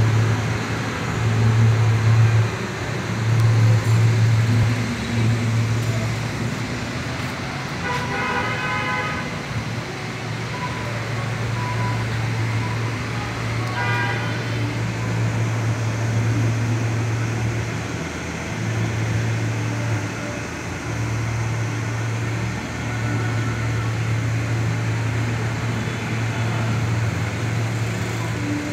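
Steady low hum of running workshop machinery, dipping briefly now and then, with two short pitched tones about eight and fourteen seconds in.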